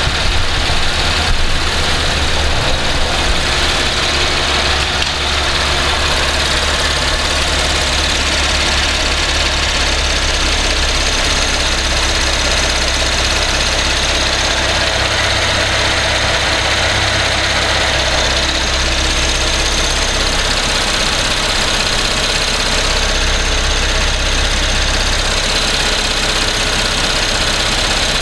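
2012 Cadillac SRX's 3.6-litre direct-injection V6 idling steadily while warming up after a cold start from standing overnight.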